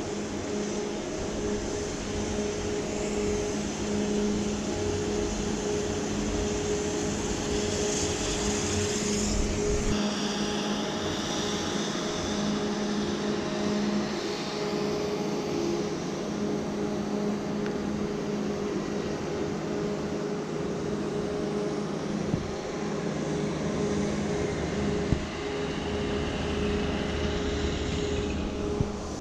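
A steady machine drone: a constant hum under a rushing hiss, with two short sharp clicks in the second half.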